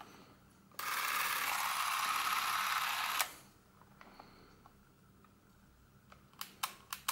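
Revue Super 8 Pocket L movie camera's motor and film transport running with a steady whirr for about two and a half seconds, then stopping with a click. A few sharp clicks follow near the end.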